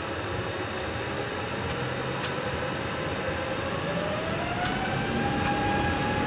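Rolls-Royce Trent XWB turbofans of an Airbus A350-900 spooling up to takeoff thrust, heard inside the cockpit. A steady rush is joined about halfway through by a whine that rises in pitch, and the sound grows slightly louder.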